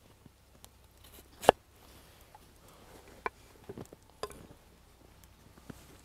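Raw lotus root being cut with a knife: a few sharp, crisp crunches and clicks, the loudest about one and a half seconds in, with smaller ones around the middle.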